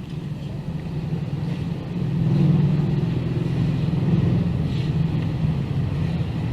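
A motor vehicle's engine running steadily, a low hum that gets louder about two seconds in and then holds.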